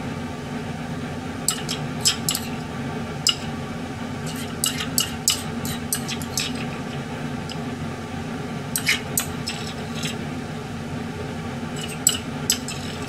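Irregular light clinks and taps of tableware, dishes, glass and utensils being handled, over a steady low hum.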